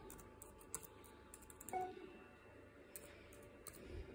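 Faint key clicks on a MacBook Air keyboard: scattered keystrokes typed in a few short runs. A short pitched sound, the loudest moment, comes a little under two seconds in.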